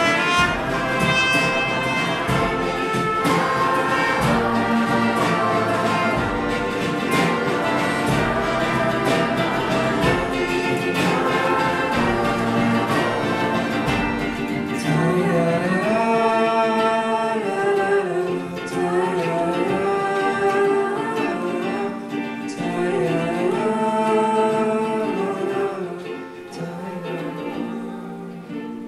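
Live ensemble of ukulele, violins and other strings with singing and choir, with drums keeping a steady beat through the first half. About halfway the drums drop out, leaving the voices and strings, and the music fades away at the end of the piece.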